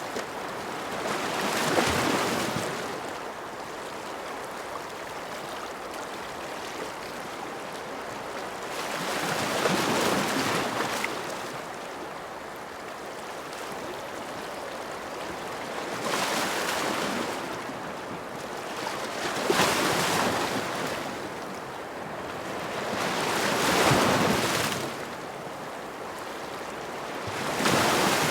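Ocean surf: waves break and wash in every few seconds, each a rush of water that swells and fades over a steady hiss of water. About six waves come in.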